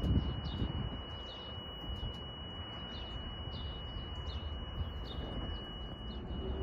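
Quiet outdoor ambience: small birds giving short, high chirps every half second or so over a steady low rumble, with a thin steady high tone throughout.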